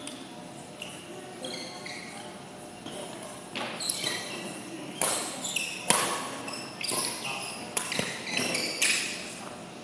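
Badminton rally: rackets hitting the shuttlecock, a string of sharp smacks about once a second through the second half, with sneakers squeaking on the court floor between shots.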